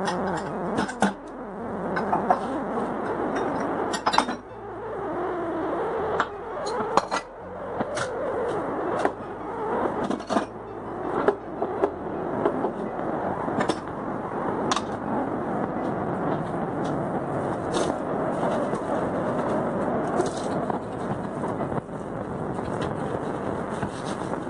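A steady rushing background noise, with frequent sharp clacks and knocks of kitchen items being put away and cupboard doors being shut, more of them in the first half.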